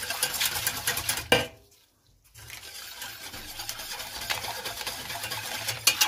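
Wire whisk stirring a thin liquid in a stainless steel pot, with rapid tapping and scraping against the metal and one louder knock. The stirring breaks off for under a second about a second and a half in, then goes on steadily.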